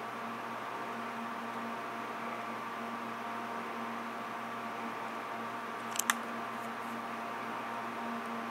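Steady electrical hum and hiss, with two sharp clicks close together about six seconds in.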